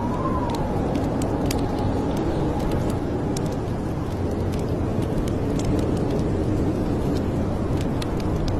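Wood fire crackling, with scattered sharp pops and snaps over a steady low rumble; a faint whistling tone rises and falls about a second in.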